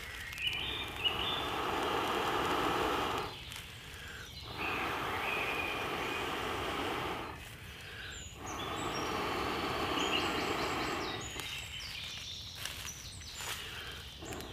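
A person blowing long, steady breaths into a dry tinder bundle that holds a glowing ember, three blows of about three seconds each with short pauses between, to coax the ember into flame.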